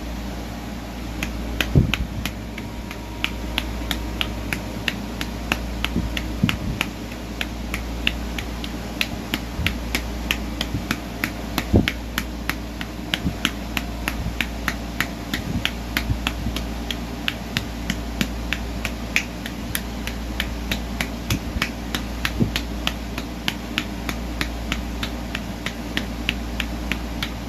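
Stomach and bowel sounds picked up close against the belly: a fast, irregular run of sharp clicks, several a second, over a steady low hum, with a few deeper thumps.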